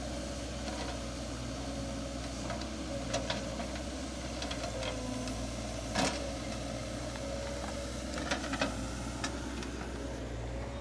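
Excavator's diesel engine running steadily, with scattered sharp knocks and clinks, the loudest about six seconds in.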